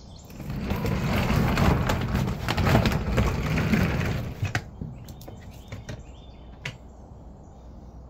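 Charcoal being poured into a smoker, the pieces clattering and rattling together for about four seconds, followed by a few single clicks.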